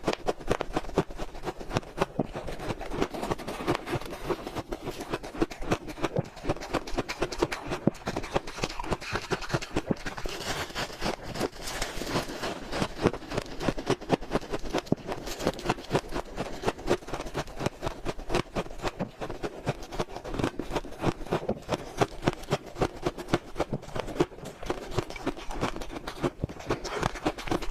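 Close-up eating of shaved, powdery freezer-frost ice: a fast, irregular stream of crunching and squeaky bites and chewing.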